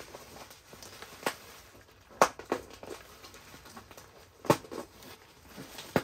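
Packaging being handled: about five sharp clicks and knocks, the loudest about two seconds in and again about four and a half seconds in, over faint rustling.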